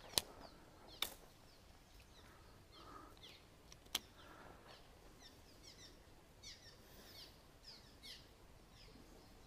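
Birds singing faintly outdoors: many quick, high chirps that sweep downward, busier in the second half. Three sharp clicks stand out, just after the start, about a second in and about four seconds in, from a baitcasting reel being handled.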